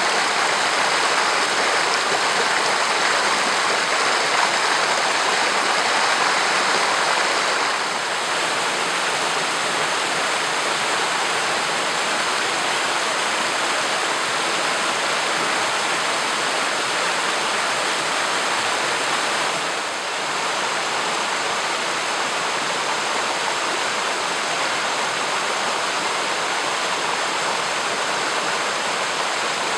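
Hurricane River flowing over rocks: a steady rush of running water, dropping slightly in level about eight seconds in and again near twenty seconds.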